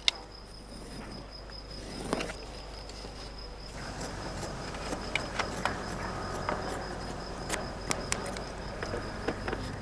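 Crickets giving a steady high trill, with scattered light clicks and scrapes from hands working a sheepskin.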